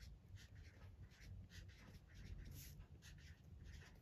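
Marker pen scratching across paper in short, quick, irregular strokes as letters are written; faint.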